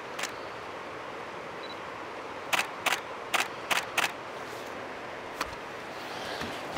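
A quick run of five sharp clicks, about a third of a second apart, over a steady outdoor background hiss.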